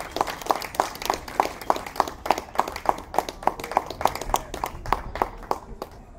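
Steady rhythmic hand clapping, about three claps a second, fading out near the end.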